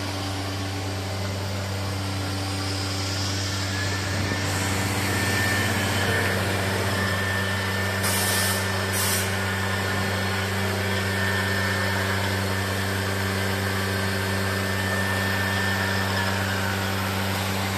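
CNC wood router for doors running: a steady machine hum, with a high steady whine from about four seconds in until near the end. Two short hisses come about eight and nine seconds in.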